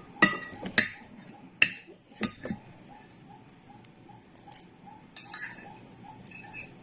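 Cutlery clinking against a plate during a meal of fried rice: five or so sharp clinks in the first two and a half seconds, then a few softer ones near the end.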